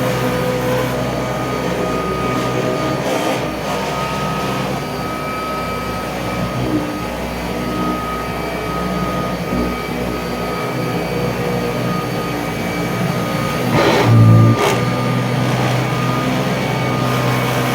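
Kirby Tradition upright vacuum cleaner running steadily while vacuuming carpet, its motor hum carrying a rattle from the handle-to-machine connection. A brief louder bump comes about three-quarters of the way through.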